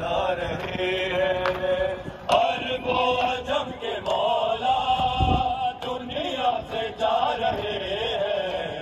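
Voices chanting an Urdu noha, a Shia mourning lament, with long held, wavering notes.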